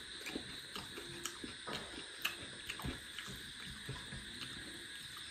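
Eating rice and mutton curry by hand from a metal plate: faint, irregular wet clicks and squelches of fingers mixing rice with gravy, with chewing.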